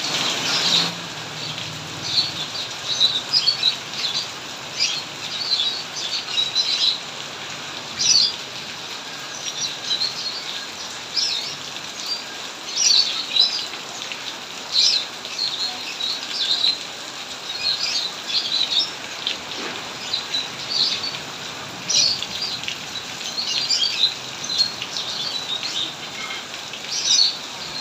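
Steady rain hiss with birds chirping over it, short high chirps coming every second or so.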